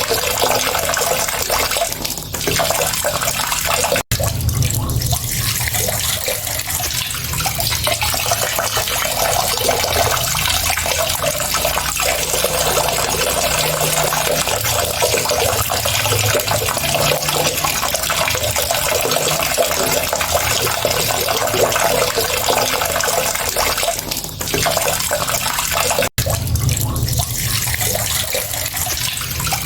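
Water running steadily in a continuous stream, as from a tap. The sound drops out for an instant twice, about four seconds in and again near the end, where the recording is spliced.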